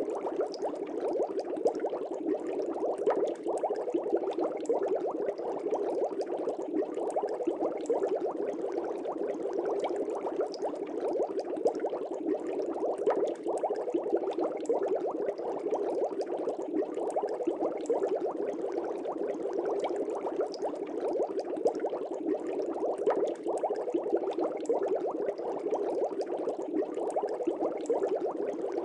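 Steady, continuous bubbling of aquarium water, a dense low bubbling full of small pops.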